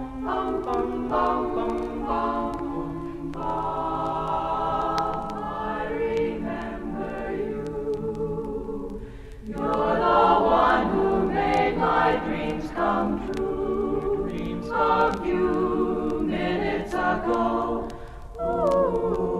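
Women's a cappella group singing held chords in close harmony, with short breaks in the singing about nine seconds in and again near the end.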